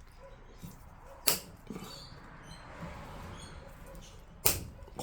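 Two sharp clicks or snaps about three seconds apart, with quiet rustling handling noise between them, from hands working on parts.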